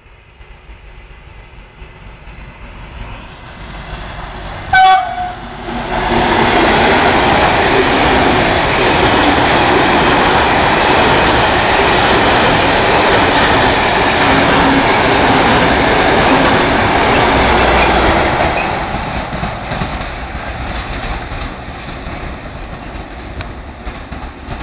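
Container freight train approaching and sounding its horn once, a short loud blast about five seconds in, given as a greeting. The train then passes close by at speed, its wheels and wagons loud for about twelve seconds before the noise fades away.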